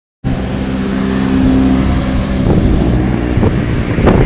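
2011 Cadillac Escalade's 6.2L V8 engine running, steady at first and then rougher, with a few sharp knocks in the second half. The uploader believes the engine is knocking.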